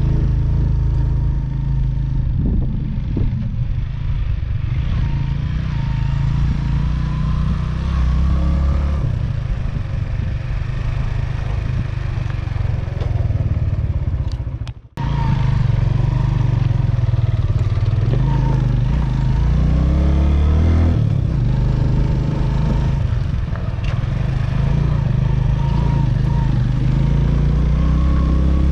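Motorcycle engine running steadily while riding, a continuous low rumble that breaks off for a moment about halfway through.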